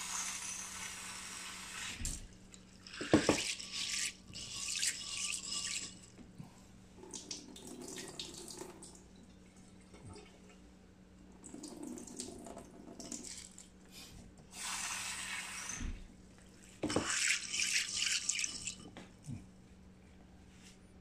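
Kitchen tap running in several bursts into a stainless steel sink as a bowl of dried soybeans is rinsed, with a few knocks of the bowl in between.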